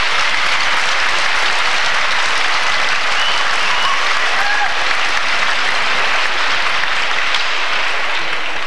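Arena crowd applauding steadily throughout.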